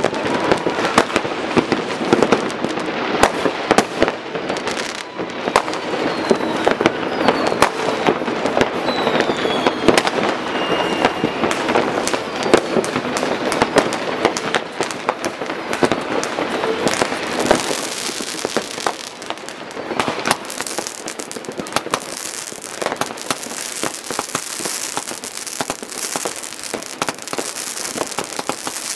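Many fireworks going off at once: rockets and firecrackers banging and crackling without a break, with a few whistles falling in pitch about a third of the way in.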